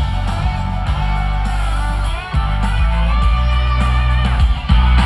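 Loud rock music with guitar over a heavy bass line.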